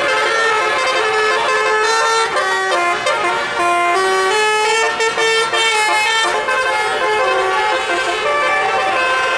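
Tour bus 'telolet' musical air horn playing a quick tune of short stepped notes without a break.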